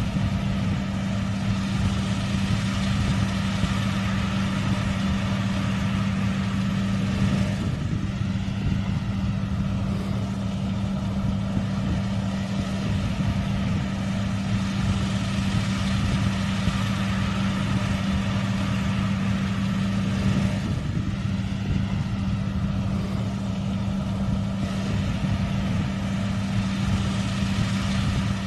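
Bakhsish 930 combine harvester's engine running steadily, with a constant low hum.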